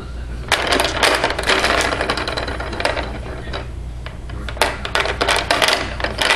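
Plastic toys on a baby's activity seat clicking and rattling as the baby grabs and handles them, in two bursts of rapid clicks, the first about half a second in and the second a little past four and a half seconds, over a low steady hum.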